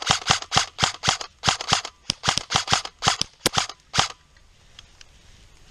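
Airsoft rifle fired in a rapid string of single shots, roughly four or five a second, for about four seconds, then it stops.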